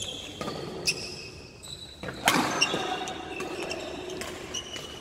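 Badminton rally: rackets strike the shuttlecock with a few sharp hits, the loudest a little past two seconds in, while shoes squeak on the court floor. The hits echo in the hall.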